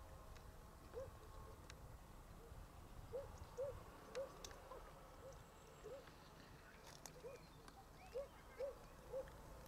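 An animal's short low-pitched calls, each rising and falling, repeated about ten times at irregular intervals of half a second to a second. A few faint clicks sound over a quiet background.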